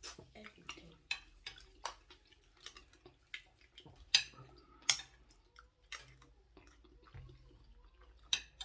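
People eating pepper soup: scattered short, sharp clicks and smacks, the two loudest about four and five seconds in.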